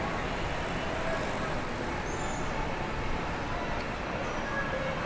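Steady city street ambience: a continuous wash of traffic noise with no single event standing out.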